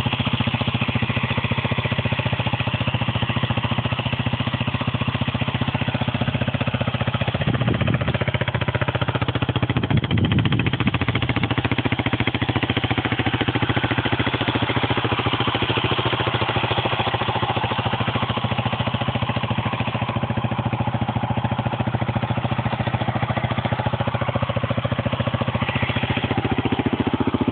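A 1983 Honda CL250S's single-cylinder four-stroke engine idling steadily. The revs swell briefly twice, about a third of the way in.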